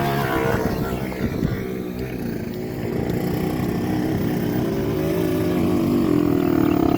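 Kawasaki Ninja 150 RR two-stroke motorcycle engine revving under load on a steep uphill climb, its pitch rising steadily over the last few seconds.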